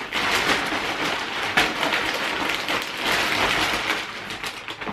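Clear plastic packaging bag rustling and crinkling as it is handled and crumpled by hand.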